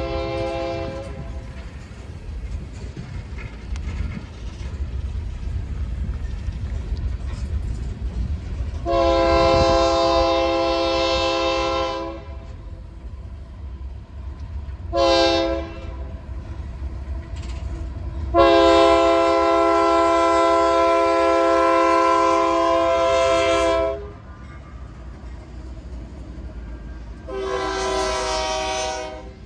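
Diesel freight locomotive horn sounding for the grade crossing: a blast ending about a second in, two long blasts with a short one between them, and a last shorter blast near the end. Underneath runs the steady rumble of the freight cars rolling past on the rails.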